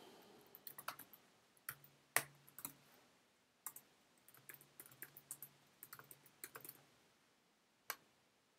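Faint, irregular keystrokes on a computer keyboard, with a single click near the end.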